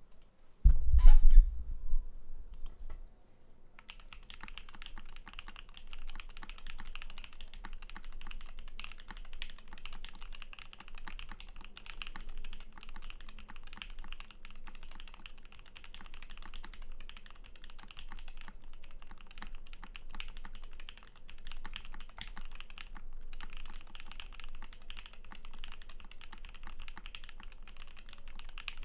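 Continuous fast typing on a custom 60% mechanical keyboard with lubed linear Black Cherry Pie switches on an aluminum plate and CRP Japanese Pink keycaps. The typing starts a few seconds in and breaks briefly near the end. Before it, about a second in, there is a loud low thump.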